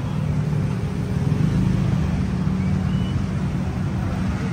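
Steady low mechanical rumble, like running machinery, that carries on evenly throughout.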